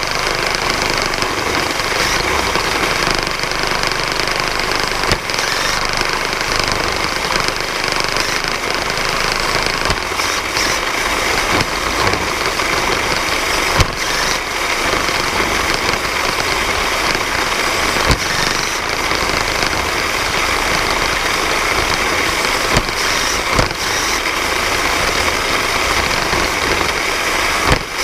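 VEX competition robot's electric motors and geared mechanism running steadily right next to the microphone, with a few sharp knocks.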